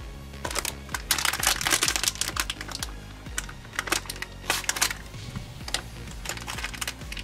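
Foil spice packet crinkling and being torn open in a series of short, crackly bursts, over steady background music.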